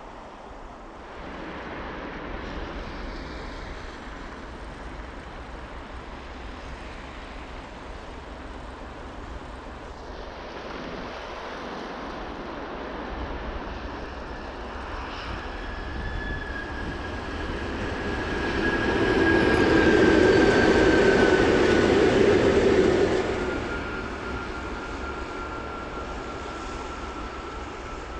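A pair of EP1M electric locomotives running past on a train. The rumble builds for a few seconds and is loudest for about five seconds, under a steady high whine that slides slowly down in pitch.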